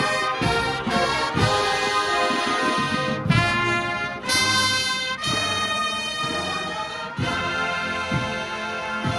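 Marching band brass section playing loud held chords over regular drum hits, with short breaks between the chords.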